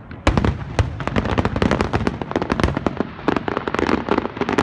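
Aerial fireworks shells bursting: two sharp bangs in the first second, then a rapid run of crackling pops from the shells' stars.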